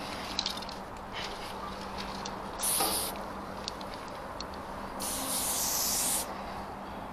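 Aerosol spray-paint can hissing in bursts as paint is sprayed: a short spray near three seconds in and a longer, louder one of about a second just after five seconds in, with fainter short sprays between.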